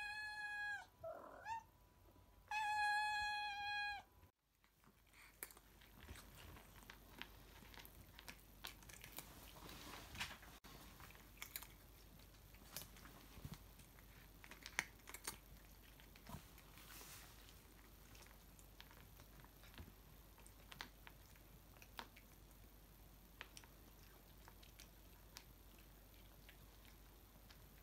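Cat meows over the opening, two long level calls with a short sliding one between, ending about four seconds in. Then two cats crunching small dry cheesy treats off a tiled floor: faint, scattered crunches and clicks.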